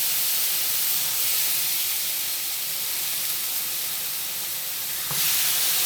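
T-bone steak sizzling in a frying pan on the stove, a steady hiss that swells louder about five seconds in.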